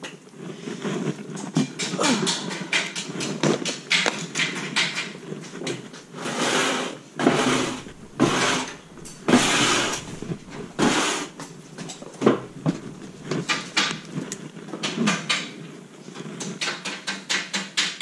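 Clattering and knocking of objects being handled and shifted about, with short bursts of rustling and scraping.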